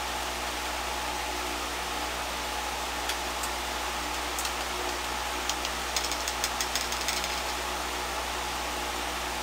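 Steady hiss with a low electrical hum, and a quick run of light clicks about six seconds in.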